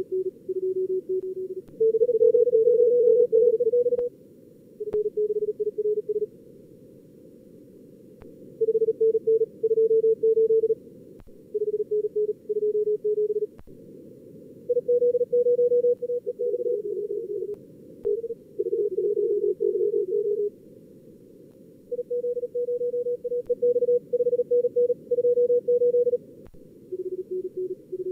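Fast Morse code (CW) from SkookumLogger's contest practice simulator at about 38 words per minute: keyed tones from several stations at slightly different pitches around 400–500 Hz, coming in runs of a few seconds with short gaps, over a steady, narrow band of receiver hiss. Audio from two radios is blended together.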